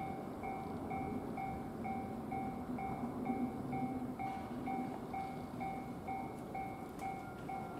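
Japanese railway level-crossing warning bell ringing steadily, a little over two strikes a second, over the rumble of a train.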